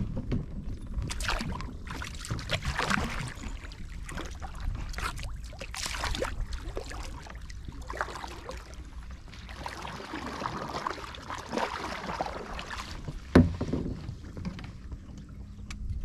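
Double-bladed kayak paddle strokes: the blades dipping, swishing and splashing in uneven bursts, with water dripping off them. One sharp knock about thirteen seconds in, likely the paddle or a foot striking the hull.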